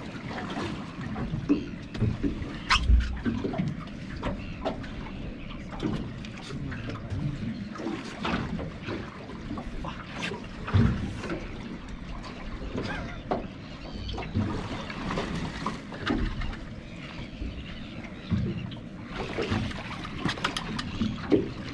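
Water sloshing against a small boat, with irregular knocks and clatters scattered throughout.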